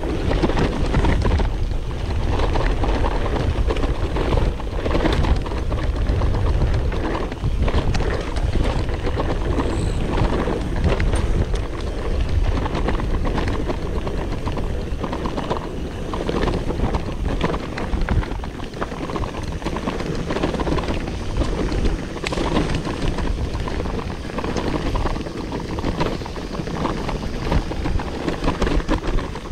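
Mountain bike going down a dirt downhill course: wind buffets the microphone, the tyres run over the ground, and the bike knocks and rattles over bumps all through.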